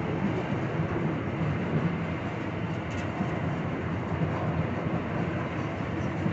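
Freight train of tank cars hauled by two GE ES44 diesel-electric locomotives climbing a grade: a steady, loud rumble of the train and its engines under load.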